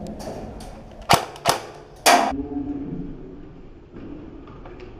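Airsoft guns firing: two sharp cracks about a second in, half a second apart, then a louder crack about two seconds in.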